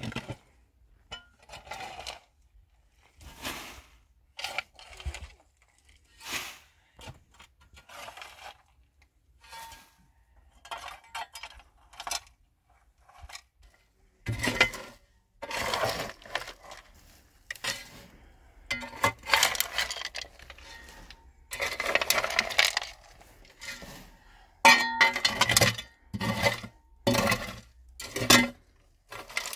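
Intermittent clinks and clatters of small hard objects being handled, sparse at first and busier from about halfway through, some with a short ringing tone.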